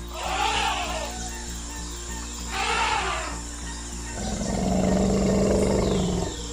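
Animal sound effects voicing animated mammoths: two short rising-and-falling cries in the first three seconds, then a longer, lower roar from about four seconds in. Background music with a steady beat plays throughout.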